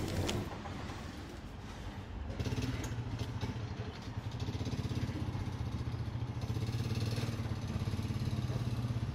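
A motor vehicle engine running steadily, a low drone with a fast flutter that grows louder about two and a half seconds in, amid street background noise.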